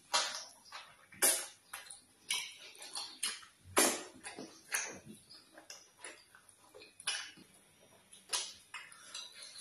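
Close-miked eating sounds of fufu and vegetable soup eaten by hand: wet chewing and lip smacks in irregular sharp clicks, the loudest about four seconds in.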